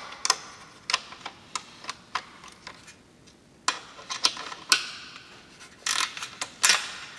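Steel wrench clicking and tapping against a bolt and a metal Z bracket on an aluminium solar-panel frame as the bolt is worked loose and repositioned. The clicks are sharp and irregular, with a quicker cluster near the end.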